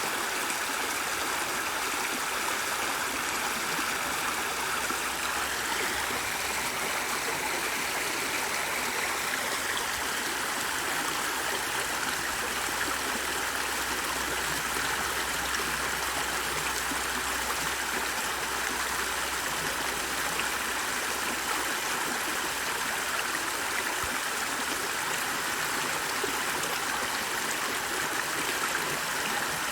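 Steady, unbroken rush of flowing water, like a stream.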